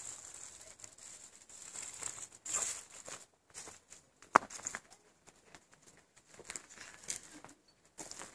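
Footsteps crunching and rustling on dirt and dry pine needles, uneven in pace, with one sharp click a little over four seconds in.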